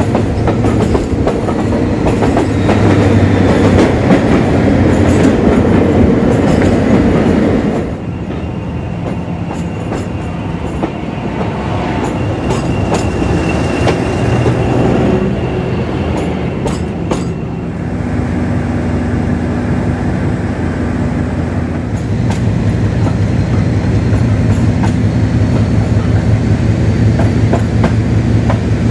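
Class 56 diesel locomotive's Ruston Paxman engine heard from the train behind it. It is working hard and loud at first, drops away sharply about eight seconds in, then builds back up from about eighteen seconds to a steady throb that grows louder again. Wheels click over the rail joints throughout.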